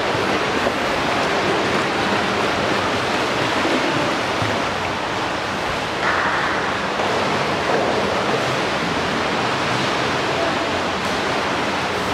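Steady rushing noise of water in an indoor swimming pool: the surface lapping and splashing around finned swimmers close to the camera, with a short louder burst about six seconds in.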